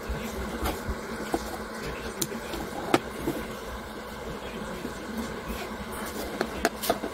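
A few light clicks and taps as the parts of a toy car are handled, with a small cluster near the end, over a steady background hum.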